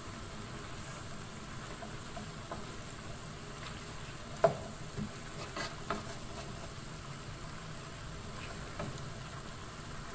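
Pancit canton and bihon noodles with cabbage and carrots sizzling in a pan as a wooden spatula stirs and tosses them. A sharp knock of the spatula against the pan comes about halfway through, with a few lighter knocks after it.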